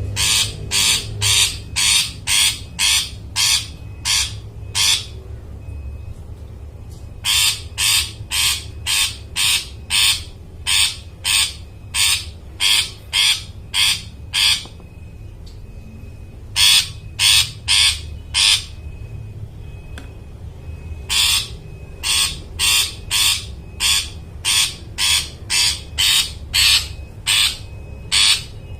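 Long-tailed shrike (cendet) calling: harsh, rasping notes repeated about twice a second, in three bouts with short pauses between, over a steady low hum.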